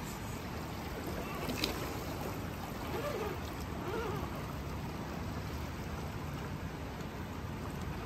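Steady rush of flowing river water, with one sharp click about one and a half seconds in.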